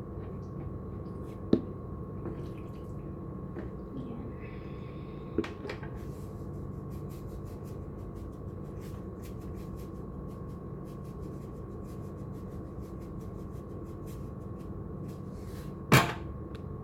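Light clicks and taps from hands working food on a kitchen counter, over a steady hum with a faint whine. A louder knock comes near the end.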